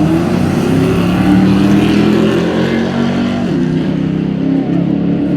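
Loud car engines running, several at once, their pitch shifting a little up and down as they idle and are blipped.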